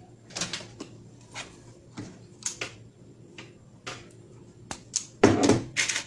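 Irregular clicks, taps and short scrapes of hands and tools doing wiring work on an electrical control panel, with one louder knock about five seconds in.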